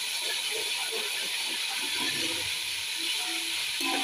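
Hot oil sizzling steadily as ginger-garlic paste fries with whole spices in a metal pot, with the scrape and clink of a metal spoon stirring against the pot. The sizzle cuts off suddenly at the end.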